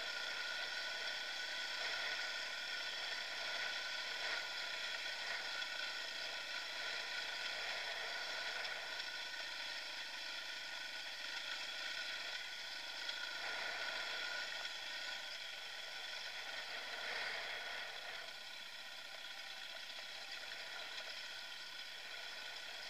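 Dirt bike engine running at a steady pace while riding singletrack, with a thin, even drone that has little bass.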